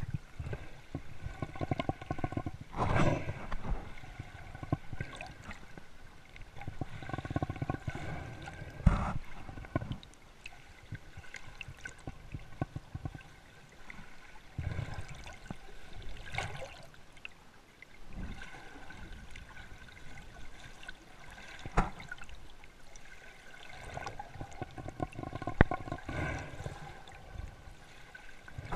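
Muffled underwater water noise: a constant gurgling, crackling wash with louder rushing surges several seconds apart and a few sharp clicks.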